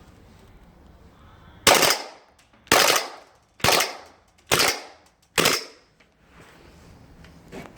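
Airsoft Glock 18C pistol fired on full-automatic at a target: five loud bursts of shots, about a second apart.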